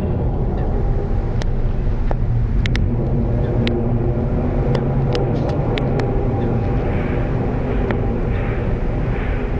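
A loud, steady, low groaning drone of unidentified origin, several low tones layered over a rumble, recorded on a phone, with scattered sharp clicks over it.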